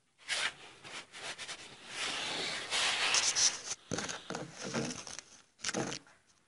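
Irregular rustling and scraping noises that start and stop in short spells, with a few brief breaks.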